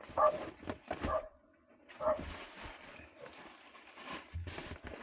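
A dog giving a few short calls near the start, then a steady hiss.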